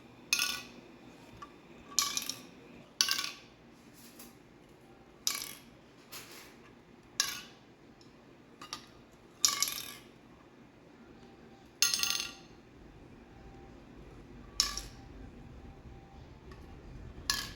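ASMR tapping and clinking on a small hard object that rings briefly after each tap: about ten sharp, separate clinks at an uneven pace, one every one to three seconds.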